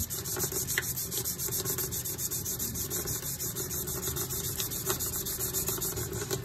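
Hand wet-sanding the rusty steel blade of an antique Robeson Shur-Edge carving knife with 320-grit sandpaper, in quick, even back-and-forth strokes, scrubbing off rust and grime.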